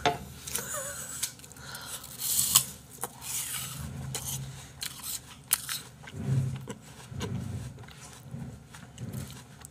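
Crisp apple slices being bitten and chewed close to the microphone: scattered crunches and wet crackles, with a few sharp clicks of a metal fork on a plate.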